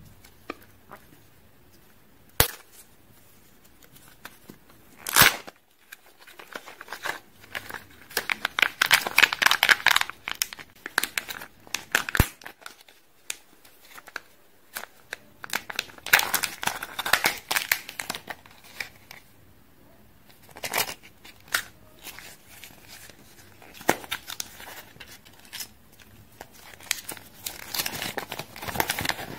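Hands opening a Kinder Joy plastic egg: a few sharp plastic clicks and snaps, the loudest about five seconds in, then crinkling and tearing as the foil seal is peeled off and the toy's plastic wrapper is opened, in several spells of dense rustle.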